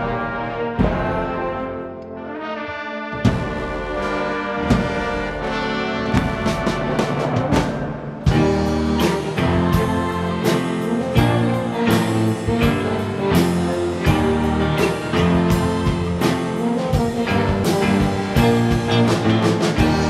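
Brass section of a school band, trombones and trumpets, playing an instrumental passage. About eight seconds in, the full band comes in underneath with a steady beat.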